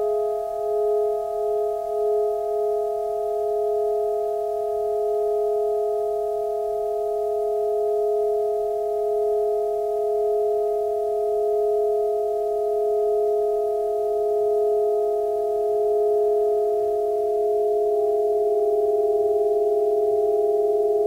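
Sustained just-intonation drone of several steady held tones from saxophone quartet and electronics. The lowest tone has a slow beating pulse that fades out within the first few seconds. Near the end the highest tone drops away and a faint low tone comes in.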